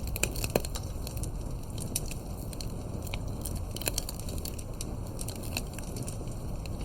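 Fireplace crackling: wood fire snapping and popping at irregular intervals over a steady low rumble.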